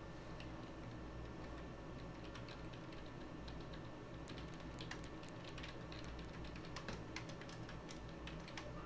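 Faint typing on a computer keyboard: irregular key clicks, sparse at first and coming quicker from about four seconds in, over a low steady hum.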